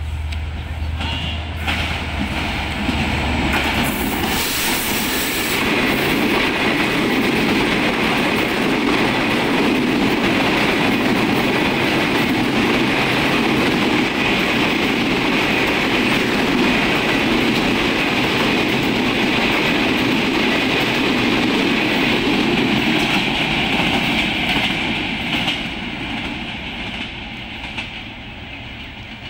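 Diesel-hauled intercity express passenger train passing close at speed. It comes up to a loud rush as the locomotive goes by about four seconds in, then a long, steady rolling noise of the coaches' wheels on the rails, fading near the end.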